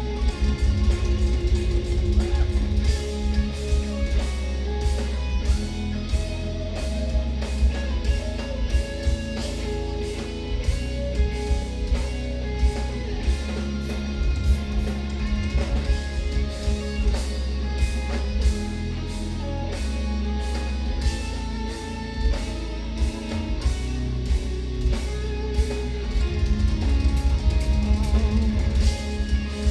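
Live instrumental progressive metal (djent): eight-string electric guitars playing heavy, low riffs over dense, busy drumming, with no vocals.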